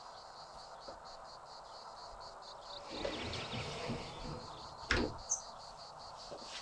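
Sliding pocket door pulled shut, rolling with a low rumble for about a second and a half and ending in a sharp knock as it meets the frame about five seconds in. A steady, rapid, high chirping like a cricket's runs underneath.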